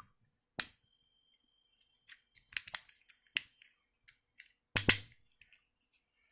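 Sharp clicks and snaps from a Kangaro all-in-one stapler worked by hand as a stapler: a single click, a quick cluster of clicks about two and a half seconds in, another click, and a louder double snap near the end.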